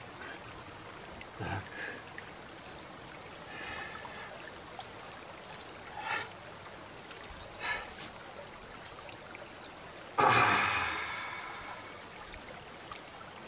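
Small forest brook running steadily over stones. About ten seconds in, a louder sound starts suddenly and fades away over a couple of seconds.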